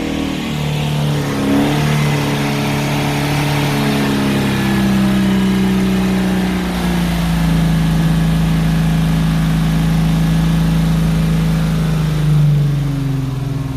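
Holden VK Commodore's 202 straight-six held at raised revs just after its first start in eight years, being kept revving to clear out. The pitch climbs a few seconds in, holds steady, then drops back near the end.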